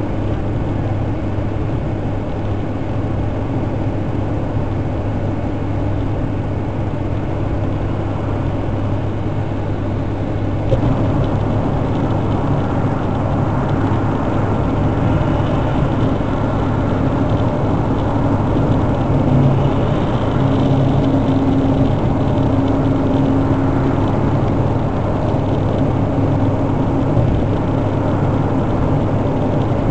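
Steady road and engine noise inside the cabin of a Nissan GT-R R35 cruising on an expressway, with a constant low hum. It gets a little louder about a third of the way through, and a deeper engine drone stands out for a few seconds about two-thirds of the way through.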